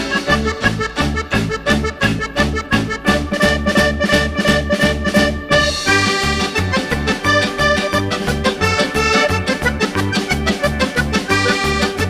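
Upbeat background music with a steady, bouncy beat and an accordion-like melody.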